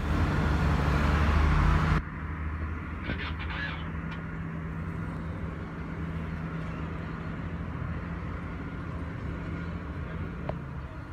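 Street traffic with a steady low engine hum; a louder rushing noise in the first two seconds cuts off suddenly, and a brief honk-like call sounds about three seconds in.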